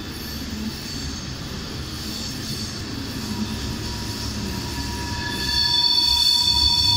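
Yellow track maintenance train, a snowblower and a tamper, approaching over a curve with a low rumble that grows louder. About five and a half seconds in its wheels start squealing loudly on the curved rails, a high piercing squeal made of several tones at once.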